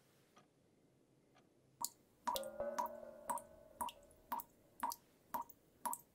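Water drips falling at a steady pace, about two a second, each a sharp click with a short ringing ping, starting about two seconds in. A held musical note from the score swells in with the drips and fades.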